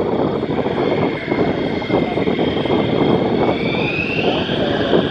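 Jet engine of a USAF Thunderbirds F-16 running, a dense steady rush with a high whine that rises in pitch about four seconds in.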